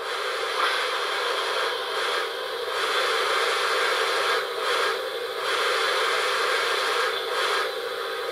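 Steam hiss from the ESU LokSound 5 XL sound decoder of an LGB model of an HSB Neubaulok 2-10-2 tank steam locomotive, played through the model's loudspeaker while it stands still. It is a steady hiss that eases off for moments a few times.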